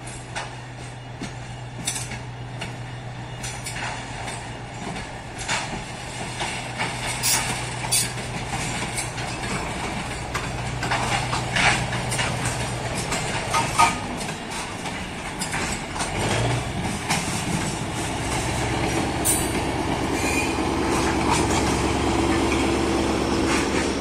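A short train of diesel-hydraulic shunting locomotives and two open gondola wagons passes close by. Diesel engine running, with repeated sharp metallic clicks and clanks from wheels and couplings over the rail joints. A deeper engine drone grows louder over the last few seconds as the tail locomotive passes.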